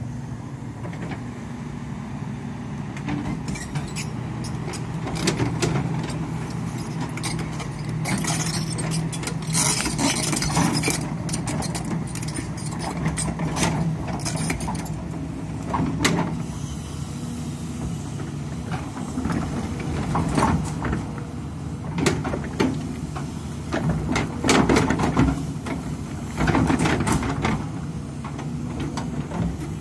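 Hidromek 300 crawler excavator's diesel engine running steadily under working load, with repeated knocks and scrapes as the steel bucket digs into soil and stones.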